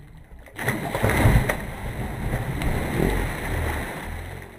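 A man diving into the sea from an outrigger boat: a loud splash and rush of churning water that starts about half a second in and slowly fades.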